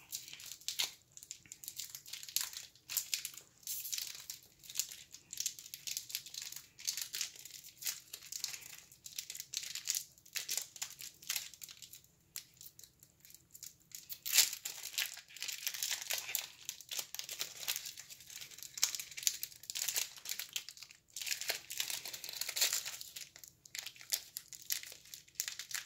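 A wax-paper wrapper on an old football card pack being torn open and crinkled by hand, in irregular crackly bursts with a couple of brief pauses.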